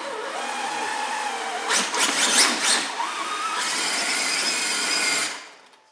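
Traxxas X-Maxx RC truck's brushless electric motor whining at full throttle as the truck strains against a tow rope hitched to a 1400 kg Lamborghini. The whine wavers in pitch and surges louder about two seconds in. It cuts off near the end.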